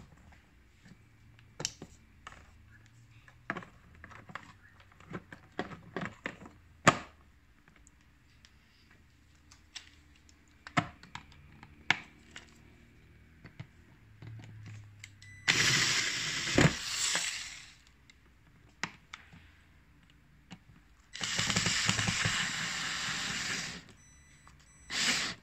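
Clicks and knocks of hard plastic controller-panel parts being handled and pressed into place, then a cordless electric screwdriver running in three bursts, about two seconds, two and a half seconds and half a second long, driving in the panel screws.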